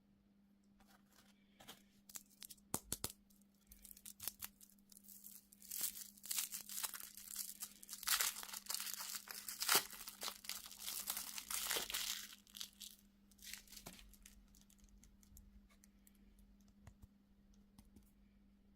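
A candy wrapper being torn open and crinkled close up. It starts as scattered crackles, grows to a dense, loud stretch of tearing and crinkling in the middle, then thins out to a few light crackles.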